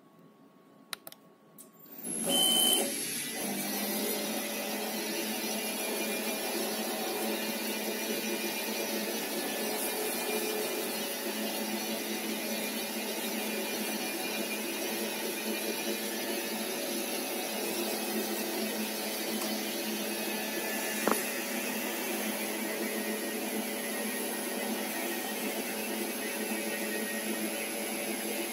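A few button clicks, then about two seconds in a small CNC lathe's spindle starts and runs steadily while the tool turns metal bar stock. It is a steady machine hum with several held tones over the hiss of cutting, with one sharp click near the end.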